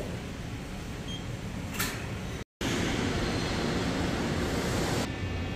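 Steady background hum of factory ventilation and machinery. It breaks off for an instant about two and a half seconds in, then comes back louder.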